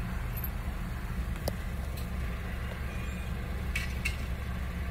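Car engine idling steadily, heard from inside the car, with a few faint clicks.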